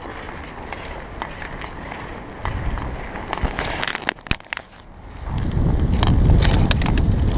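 Bicycle tyres crunching and crackling through fresh snow, with a run of sharp clicks about four seconds in. From about five seconds in, wind rumbles on the microphone.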